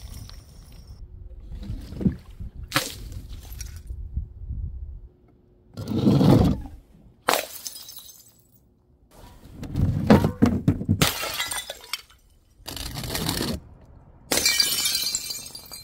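A series of things dropped from height onto concrete paving tiles: about half a dozen separate impacts, including paint-filled balloons bursting with wet splats. Near the end, a glass jar packed with water beads smashes, with glass shattering and beads scattering.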